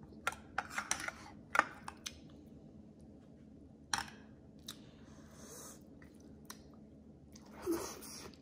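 A person eating rice and meat: chewing with a quick run of sharp clicks and crunches in the first two seconds, another sharp click about four seconds in, and a short louder noisy burst near the end.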